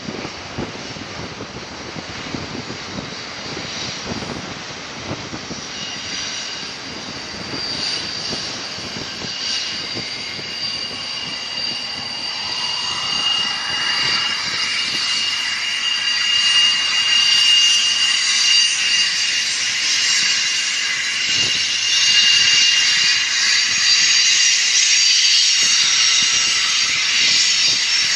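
A long Union Pacific intermodal freight train rolling around a curve. High-pitched steady squealing tones come in after a few seconds and grow louder, holding strong through the second half.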